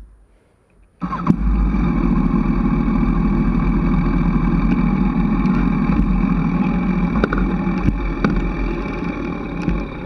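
Yamaha FZ1N's inline-four engine running through a slip-on exhaust as the motorcycle rolls slowly. The sound comes in abruptly about a second in, after near quiet with a few faint clicks.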